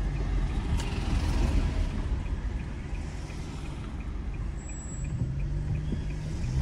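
Car cabin noise during a slow left turn: steady low engine and road rumble, with a faint regular ticking about three times a second from the turn signal. A brief high beep sounds about halfway through.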